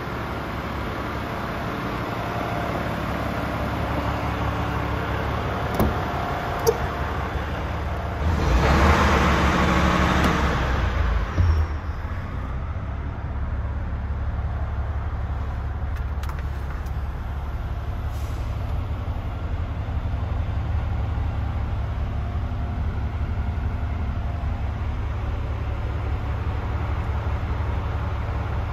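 DAF CF440 tractor unit's Paccar 440 hp Euro 6 diesel engine idling steadily. Two sharp clicks come around a fifth of the way in, followed by a loud hiss lasting about three seconds.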